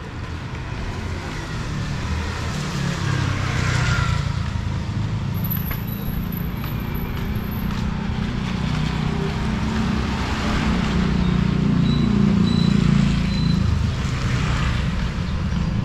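Street traffic: motor vehicles passing close by, a low engine rumble that swells a few seconds in and again past the middle.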